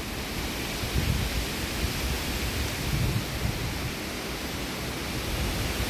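Strong wind rushing steadily, with gusts buffeting the microphone in low rumbles, strongest about one and three seconds in.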